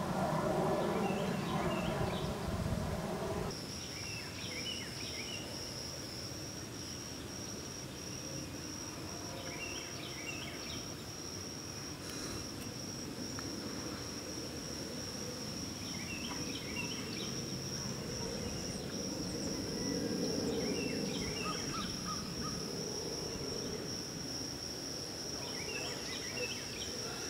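A steady, high-pitched insect drone starts about three seconds in and carries on throughout. Short bird chirps come every few seconds, and a low rumble dies away in the first few seconds.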